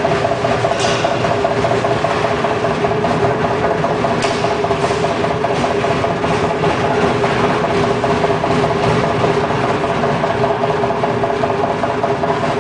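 Maksindo MKS-KT99 potato slicer running steadily: a motor hum with a fast, even pulsing over a mechanical rattle, and a few faint clicks.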